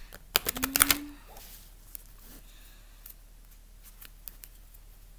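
A deck of Egyptian Cartouche cards being shuffled by hand. A quick burst of card clatter comes about half a second in, then scattered soft taps and rustles as the cards are handled.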